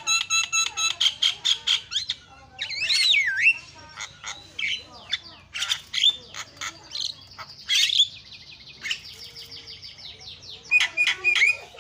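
Caged Javan myna singing a loud, varied song: a fast run of repeated sharp notes, a swooping whistle, scattered chirps and squawks, and a rapid buzzy trill in the middle.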